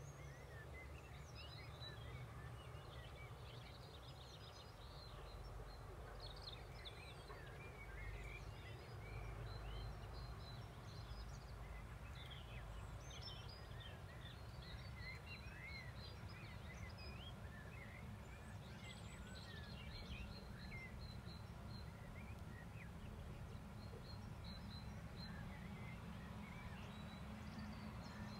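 Faint evening birdsong: several small birds chirping and singing in short, scattered phrases, over a low steady rumble.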